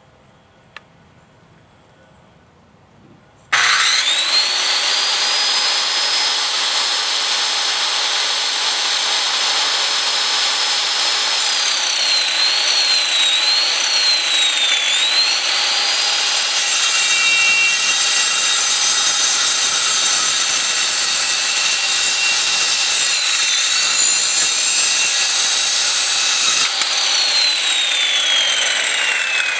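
Circular saw with a 7-1/4 inch Lenox steel-cutting blade starts about three and a half seconds in and cuts through thin steel square channel with a loud high whine. Its pitch dips several times as the blade works through the metal, and near the end the pitch falls steadily as the saw winds down.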